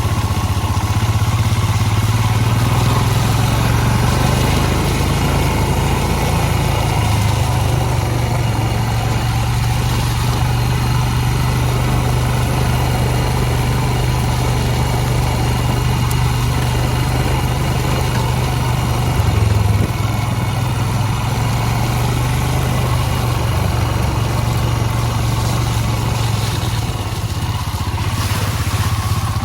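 Royal Enfield Himalayan's single-cylinder engine running steadily, with a slight change in its hum about two-thirds of the way through.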